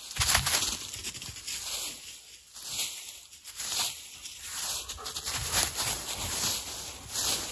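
Dry fallen leaves and forest litter rustling and scraping as the ground is cleared, in repeated strokes about once a second.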